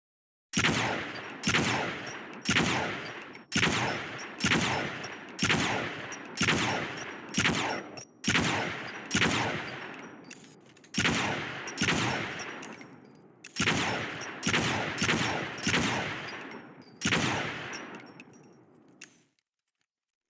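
Heckler & Koch HK33SG/1 rifle, a 5.56 mm semi-automatic sniper variant, firing about twenty single shots at roughly one a second. Each shot has a long echoing decay, and the string stops about a second before the end.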